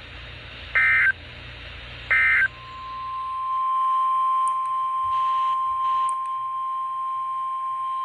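Two short, shrill end-of-message data bursts of the Emergency Alert System's digital SAME code end one alert. Then the steady 1050 Hz NOAA Weather Radio warning alarm tone comes in about two and a half seconds in, swells over a second or so and holds.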